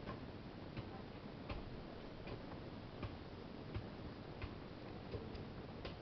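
Faint, regular ticking: a short sharp click about every three-quarters of a second over a steady hiss.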